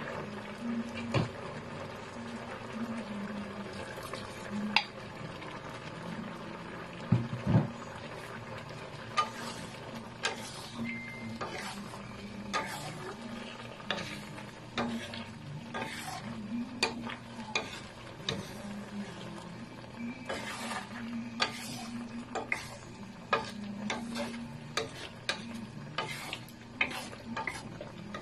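A spatula stirring shrimp and squash chunks in simmering coconut milk, scraping and knocking irregularly against the pan, with a low steady hum underneath.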